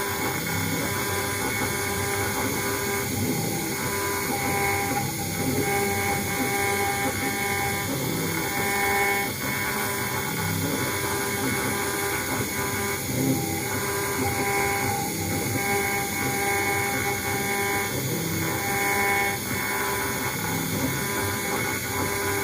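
CNC router engraving brass: a steady high spindle whine over stepper-motor tones that change pitch every second or two as the cutting head moves back and forth in passes.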